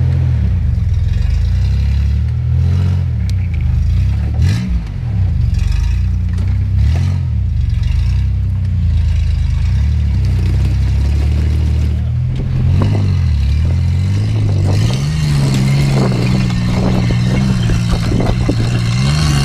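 Lifted off-road pickup truck's engine revving up and down with the throttle as it crawls up and over a rock ledge. About fifteen seconds in it settles into a higher, steadier note.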